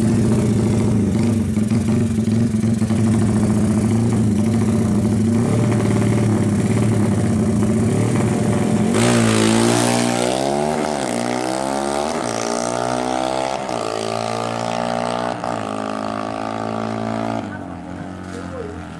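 Honda Tiger drag bike's single-cylinder engine, bored up to 300cc, running steadily, then about nine seconds in launching and accelerating hard. Its pitch rises through several gear shifts and fades as the bike pulls away.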